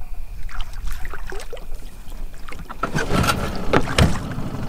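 Small fishing boat on the water: a steady low drone, with splashing and knocks that grow louder about three seconds in.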